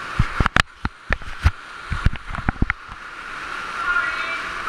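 Underground cave stream rushing steadily, with a quick flurry of sharp knocks and bumps in the first three seconds.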